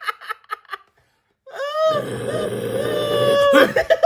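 A person's voice: a quick run of laugh-like pulses, then after a short pause a long, rough wailing cry held on one pitch.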